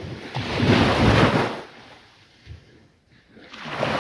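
Surf washing on the beach: a swell of rushing wave noise about a second in that dies away, then another building near the end.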